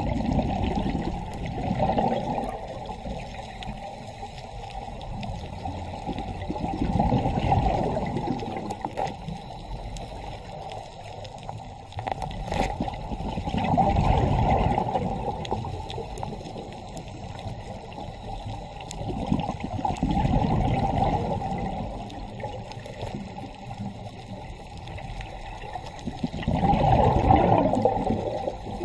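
Scuba diver's exhaled bubbles from the regulator, heard underwater: a gush of gurgling bubbles about every six to seven seconds, five in all, with quieter water noise between.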